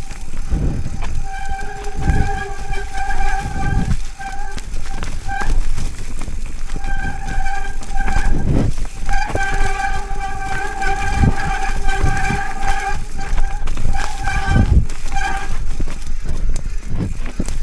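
Mountain bike disc brakes squealing in several stretches of one to four seconds, the same steady high tone each time, over low wind rumble and knocks from the rough trail.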